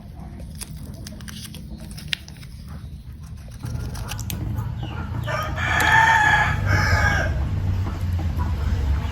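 A rooster crowing once, in two drawn-out parts, past the middle, over a low rumble that grows louder. Small scattered clicks come before it.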